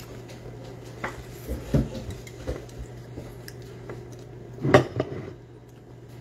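Cutlery clinking and knocking against plates and bowls during a meal: a few scattered short knocks, the loudest near the end, over a steady low hum.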